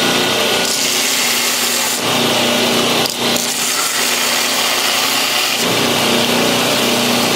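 Belt grinder running while a pocket knife's handle is sanded down against the belt: a steady, loud, coarse sanding rasp over the motor's hum, dipping briefly about three seconds in.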